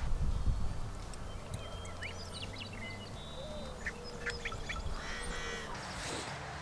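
Birds calling: scattered short chirps and quick calls throughout, with a denser stretch of calls near the end, over a faint low rumble.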